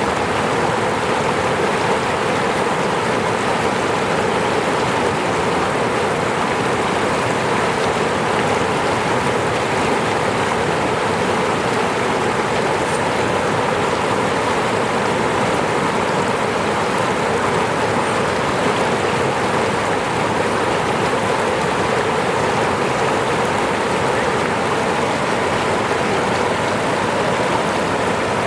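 Falling water rushing and splashing in a steady, unbroken stream.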